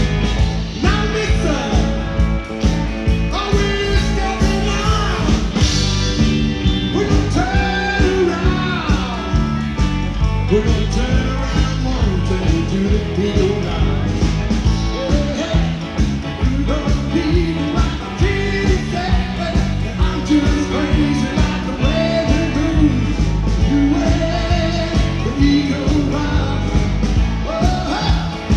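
Live rock-and-roll band playing loud and steady: drum kit, bass guitar, electric guitar and keyboard, with bending melody lines over a driving beat.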